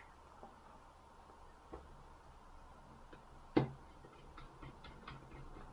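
Faint clicks and ticks of a small precision screwdriver working a screw out of a Samsung B2100 mobile phone's plastic housing, with one sharper click about three and a half seconds in and a run of quick light ticks near the end.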